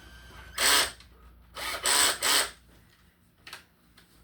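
Electric drill with a small bit run in four short trigger bursts: one, then three in quick succession. It is not yet cutting steadily.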